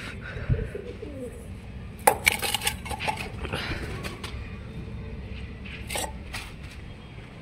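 Stainless steel bowl clinking as cooked rice is knocked out of it onto concrete. There is a quick cluster of ringing metallic clinks about two seconds in and one more clink near the end.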